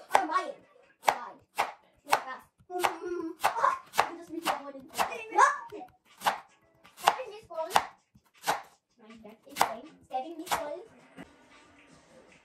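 Knife cutting through a peeled raw sweet potato onto a wooden cutting board: a steady series of sharp chops, about one every half second to second, that stop near the end.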